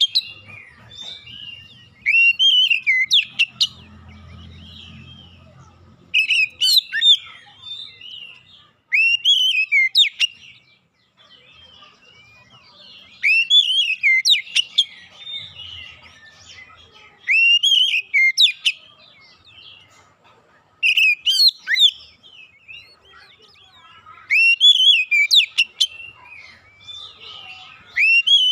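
Oriental magpie-robin singing loud phrases of sweeping whistles mixed with sharp clicks. The phrases come in short bursts about every three to four seconds, with brief pauses between.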